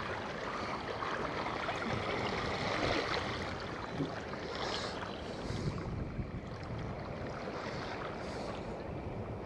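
Sea water washing against the stones of a breakwater pier, with wind on the microphone; two brief louder washes come about five and eight seconds in.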